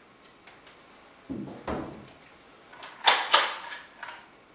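Knocks and bumps of wood from handling inside a large carved wooden cabinet: a duller bump a little over a second in, then two sharp knocks in quick succession about three seconds in, followed by a softer one.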